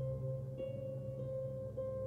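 String orchestra playing slow, soft held notes over a low sustained bass note, with a new higher note entering about half a second in.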